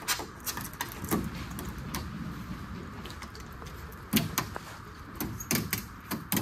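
Utility knife cutting a polycarbonate sheet along the edge of a wooden frame: irregular scrapes and sharp clicks as the blade catches and the sheet flexes, with a couple of louder strokes about four and five and a half seconds in.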